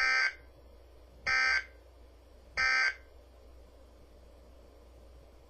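Three short bursts of SAME digital data tones from a weather radio, each about a third of a second long and evenly spaced over the first three seconds: the end-of-message code that closes the weekly test alert broadcast.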